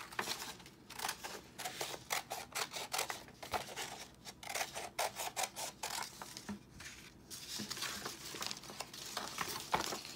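Scissors snipping through paper in quick runs of short, crisp cuts, with the sheet rustling as it is handled. The snips thin out for a couple of seconds past the middle, then pick up again.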